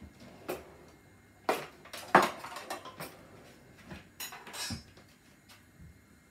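Crockery and cutlery clinking and knocking on a kitchen worktop as bowls and a spoon are handled: a string of sharp clinks, the loudest about two seconds in, and a brief ringing clink about four and a half seconds in.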